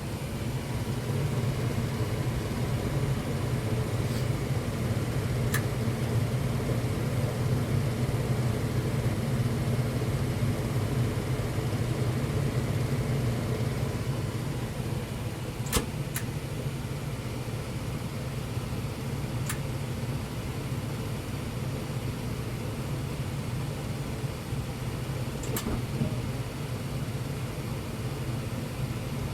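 Household furnace running with a steady low hum, broken by about half a dozen sharp clicks at uneven intervals, the loudest about halfway through. The clicking while running is the unexplained noise the furnace's owner is complaining of.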